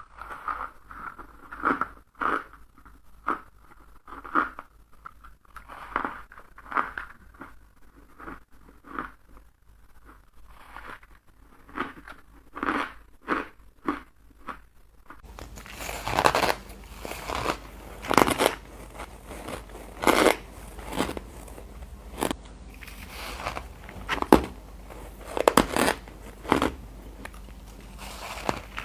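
A person biting into ice and crunching it, one sharp crunch after another at an irregular pace of roughly one or two a second. About halfway through, a steady low background hum gets louder.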